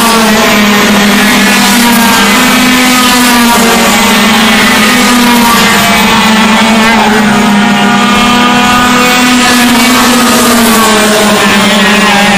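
Several Yamaha two-stroke racing kart engines running at high revs, a loud, steady, dense buzz. A few pitches slide as single karts go by.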